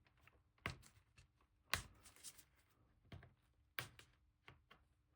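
Near silence broken by about four faint, sharp clicks and taps, spread a second or so apart, from handling small tools and parts inside an opened tablet.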